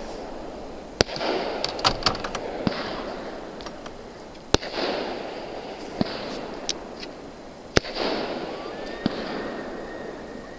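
Fireworks going off: a handful of sharp bangs at uneven intervals, each followed by about a second of crackling.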